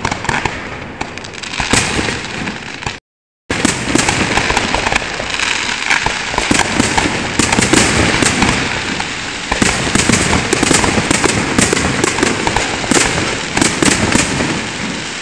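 Fireworks bursting in quick succession, a dense run of bangs and crackling. The sound drops out completely for about half a second around three seconds in, then comes back busier and louder.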